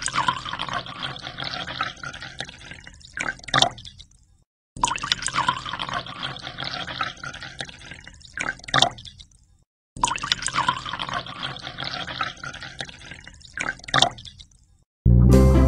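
A stream of water pouring and splashing into a glass aquarium as it fills, in three stretches broken by brief silences, each stretch ending with two sharp splashy knocks. Music begins right at the end.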